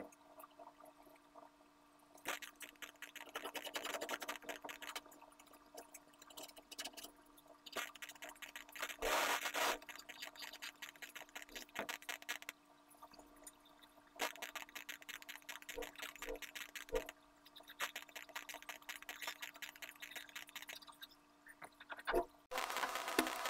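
Pencil scratching on drawing paper in bursts of strokes a few seconds long, with short pauses between, over a faint steady hum. Near the end a louder steady noise cuts in suddenly.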